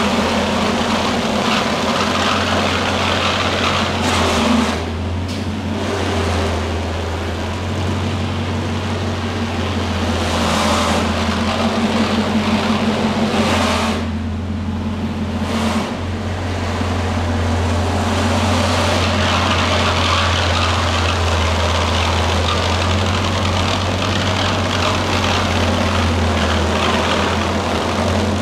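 Bugatti Chiron Super Sport 300+'s quad-turbo W16 engine idling with a steady low hum, easing slightly up and down.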